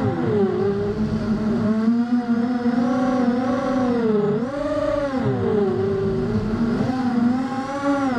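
Racing quadcopter's four T-Motor 1806 2300 kV brushless motors spinning 5x4.5 props on 4S, a continuous buzzing whine that rises and falls in pitch with the throttle. It drops sharply just after the start, again around the middle, and at the end.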